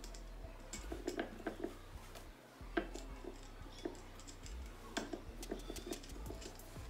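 Small clicks, taps and knocks of a metal paper towel holder being assembled by hand, its tube and rod knocking against the base as the parts are fitted together. The sharpest knocks come about three seconds in and again about five seconds in.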